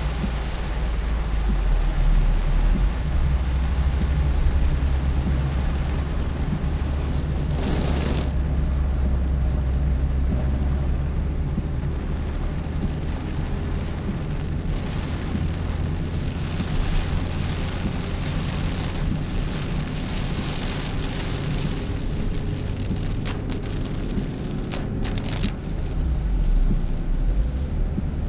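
A car driving, heard from inside the cabin: a steady low engine and road rumble under a hiss of tyre noise, with a few brief surges of hiss, the strongest about eight seconds in.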